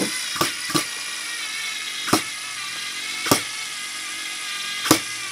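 Black & Decker cordless screwdriver, converted to a single lithium cell, running under load as it drives a 2.5-inch screw into a wooden board. Its motor and gearbox give a steady whine, broken by a few sharp clicks.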